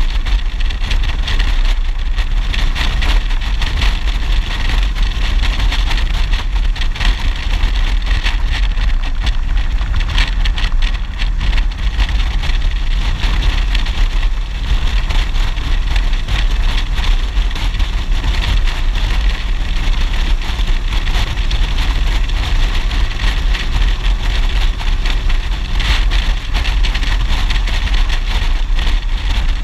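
Wind rushing over the camera microphone as a motorcycle cruises at steady road speed, with the engine's drone underneath.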